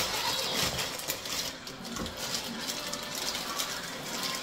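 Electric food processor running, grinding semi-frozen pork into a sticky paste, with a steady whirring and rattle.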